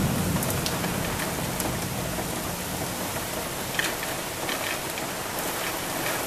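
Heavy rain falling steadily, an even hiss with a few nearby drops ticking now and then. The last of a thunder rumble dies away in the first second.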